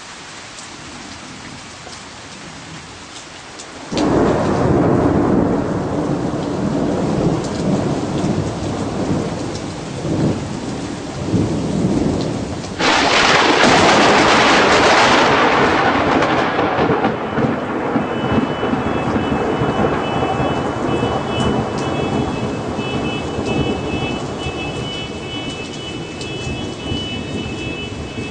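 Rain falling, then a sudden loud thunderclap about four seconds in that rolls on as rumbling thunder. A second, louder and sharper crash from a close lightning strike comes a little under halfway through and fades back into rumbling. In the second half a steady high-pitched tone sounds over the rain.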